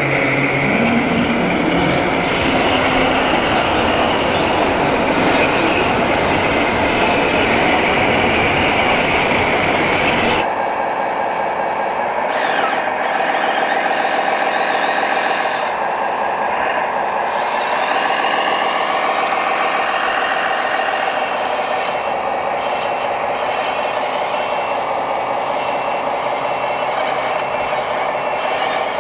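Electric drive of a 1/14-scale RC tractor whining steadily as it tows a grading box through soil. About ten seconds in the sound changes abruptly to a steadier whine from the hydraulic pump and motors of an RC hydraulic wheeled excavator.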